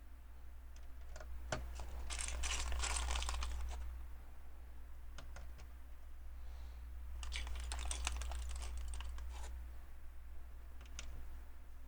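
Small plastic LEGO pieces clicking and clattering as they are handled and sifted, with two busier stretches of rapid clicks and scattered single clicks between, over a low steady hum.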